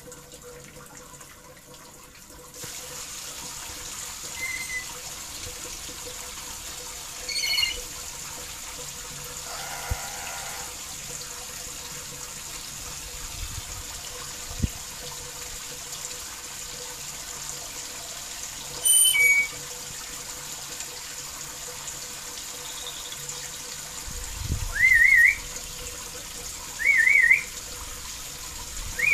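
Black-capped lory calling with short, shrill whistles, several times; the loudest are two wavering whistles about two seconds apart near the end. Under them runs a steady hiss of water.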